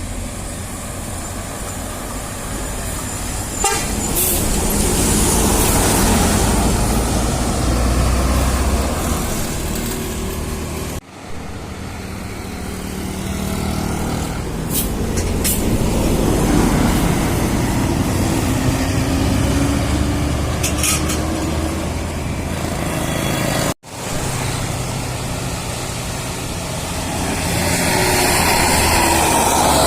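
Heavy bus engine running, with toots of a multi-tone Basuri "telolet" horn. The sound breaks off abruptly twice.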